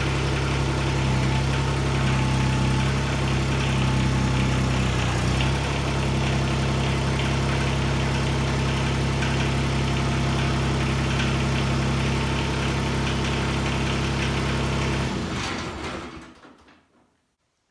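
LS MT122 subcompact tractor's three-cylinder diesel engine running steadily, then shut off about fifteen seconds in, dying away over a second or two.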